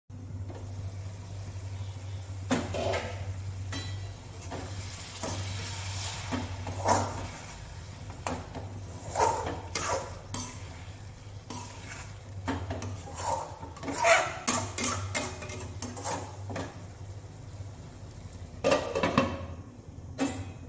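Metal spatula scraping and knocking against a stainless steel kadai as potatoes in masala are stirred and fried, with the pot's lid clattering off and back on, over a steady low hum.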